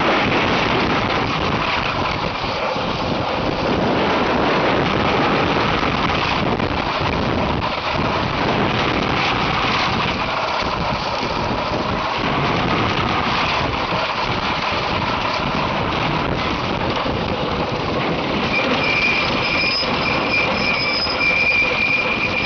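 Wooden roller coaster train running at speed along its wooden track, heard from onboard: a continuous loud rattling rumble of the wheels on the track.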